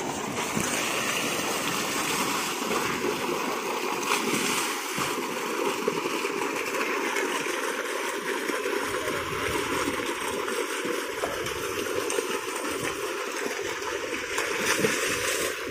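Tube well's pump outlet gushing a steady stream of water into a concrete bathing tank, with people splashing in it. There is a louder splash near the end.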